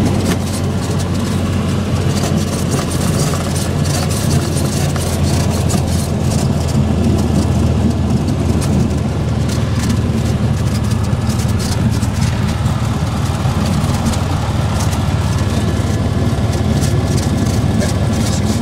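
Light aircraft's piston engine running steadily at low power, a loud, even low drone.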